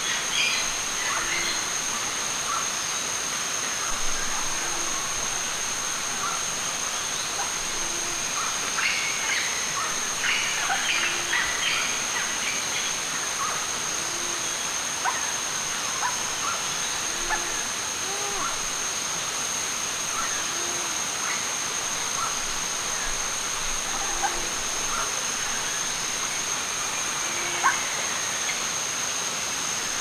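Rainforest stream ambience: a steady rush of flowing water under a constant high-pitched whine, with a short low call repeating about every second and a half. Scattered light clicks and taps, busiest about nine to twelve seconds in.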